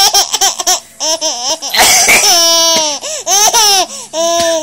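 Baby laughing hard in a run of high-pitched bursts, quick short ones at first, then longer peals.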